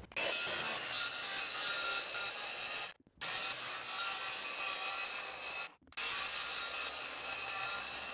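DeWalt circular saw ripping along the edge of a plywood deck topped with Skatelite, a steady cutting noise that breaks off briefly twice. It is trimming the deck edge back to a snapped chalk line to seat the coping.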